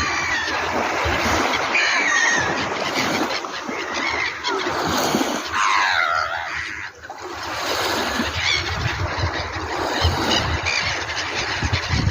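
Gulls calling: short cries, and one longer call that falls in pitch about six seconds in, over a steady rushing noise.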